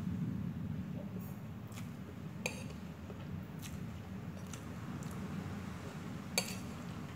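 Eating sounds: a metal fork clinks sharply against a plate twice, the louder strike near the end, with faint wet slurping of noodles. A steady low hum lies underneath.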